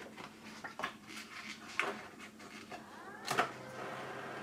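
Clicks and rustles of a paper roll being pushed into the feed slot of a Primera Impressa IP60 inkjet photo printer, then a sharp click about three seconds in. Right after it the printer's feed motor starts a steady whine as the printer draws in the paper.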